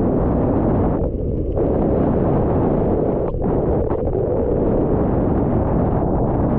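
Strong wind buffeting the camera microphone: a loud, steady, rumbling rush with no pauses.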